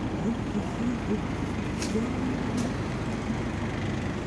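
Steady rumble of city street traffic, with a few short clicks.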